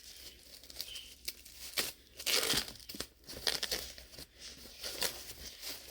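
Wrapping around a book being crinkled and torn open by hand, in irregular rustling bursts.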